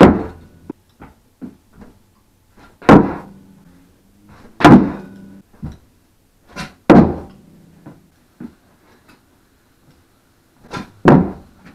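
Tie-dye Revive skateboard deck, with no wheels, slapping down on carpet as ollies and flip tricks are landed: about five loud thumps a couple of seconds apart, with smaller knocks between them.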